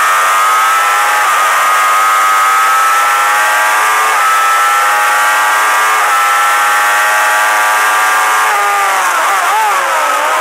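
Suzuki GSX-R1000 race bike's inline-four engine under hard acceleration, heard from on board. Its pitch climbs through the gears with a brief break at each upshift, then drops and wavers as the bike slows near the end. Wind rushes past the whole time.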